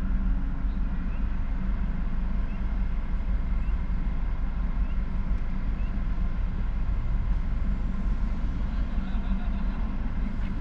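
Steady low rumble with a hum, heard from inside a stopped car, from the car's engine idling.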